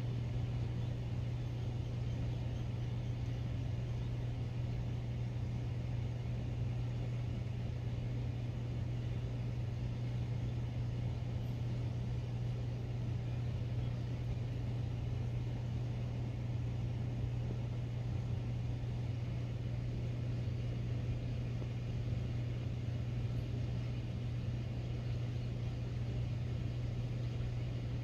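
A steady low hum with a faint hiss over it, unchanging.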